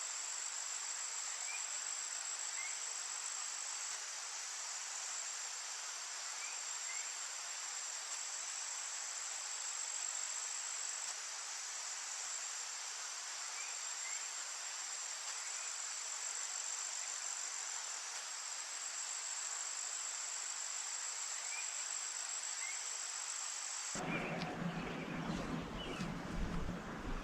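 Steady high-pitched insect chorus, a continuous shrill trill like crickets, with faint short rising chirps in pairs every few seconds. About 24 seconds in it cuts abruptly to a different outdoor recording with a low rumble and scattered chirps.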